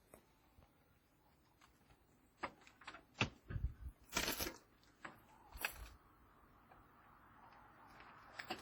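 A scattering of faint clicks and light knocks, a dozen or so in a few seconds, like small objects being handled.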